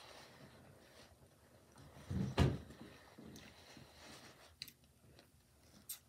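A person chewing food with soft mouth noises. About two seconds in comes a short, louder low thump, and a few faint clicks follow later.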